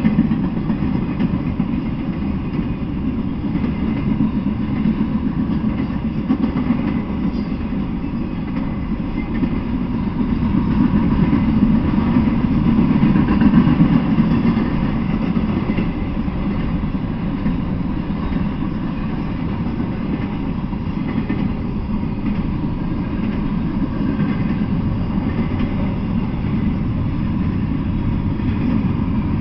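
Intermodal freight train cars rolling past: a steady rumble of steel wheels on rail, swelling a little about halfway through.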